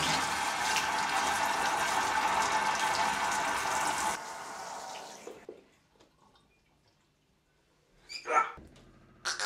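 Tap water running into a sink as a steady hiss, which stops about four seconds in and fades to near silence. Two short, loud sounds follow near the end.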